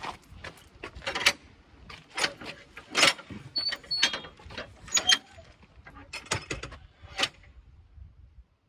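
Footsteps of a walker on a footpath: a run of irregular crunches and clicks, about one strong step a second, with a brief thin squeak about halfway through. The sound cuts off suddenly near the end.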